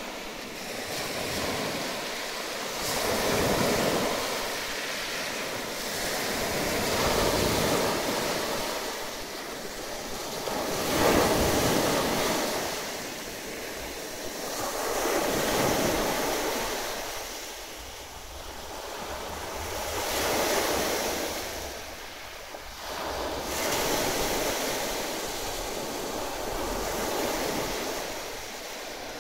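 Small Baltic Sea waves breaking and washing up a sandy shore, the surf swelling and falling back about every four seconds.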